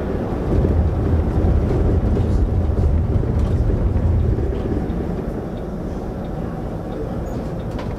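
City bus driving, heard from the driver's seat: a steady low engine rumble with road and cabin noise. The rumble grows louder about half a second in and settles back down about five seconds in.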